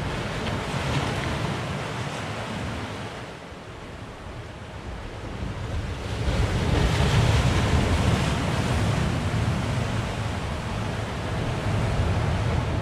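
Surf breaking and washing up the beach in a heavy swell, with wind buffeting the microphone; the surge grows louder about six seconds in.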